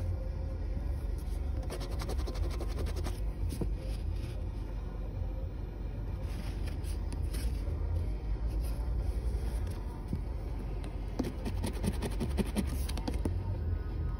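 Scratch-off lottery ticket being scratched, in two spells of quick scraping strokes, one a couple of seconds in and one near the end, over a low steady rumble.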